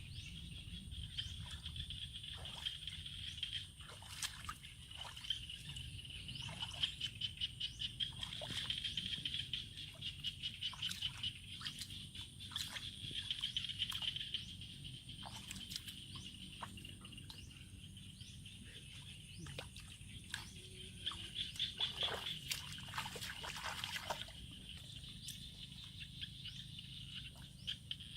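Water sloshing, trickling and splashing in irregular short bursts, as fish are caught by hand in shallow water, over a steady high chirring from the surroundings.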